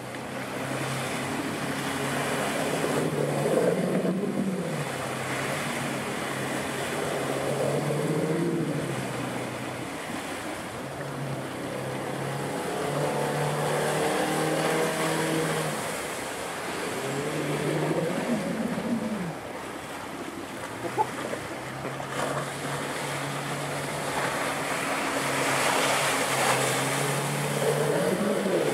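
Mercury F60 EFI four-stroke 60 hp outboard running at speed, its pitch rising and falling as the revs change, over the constant rush of water spray and wind. A single sharp knock comes a little past the middle.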